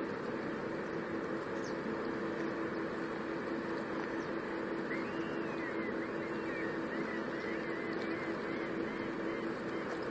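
Steady drone of a distant river tug's diesel engine carried across the water. From about five seconds in, a bird joins with a quick run of chirping calls.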